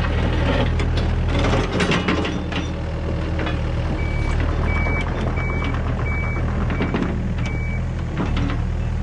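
A midi excavator's diesel engine runs steadily under load while the bucket teeth rake through rocky soil, with scraping and knocks of stones. About four seconds in, a backup alarm gives about six short, even beeps at one pitch.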